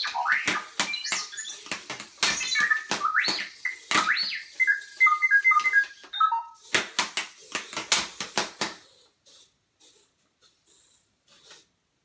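R2-D2 droid beeps, chirps and whistles played through the sound system of a home-built R2-D2 replica. It gives rising and falling whistles, then a run of short beeps stepping down in pitch about five seconds in, then a burst of rapid clicky chatter that stops about nine seconds in.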